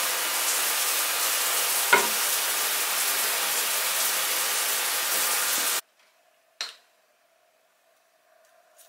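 Steady, even hissing noise with a single click about two seconds in; it cuts off abruptly just before six seconds, leaving near silence with a faint steady hum and a few soft clicks.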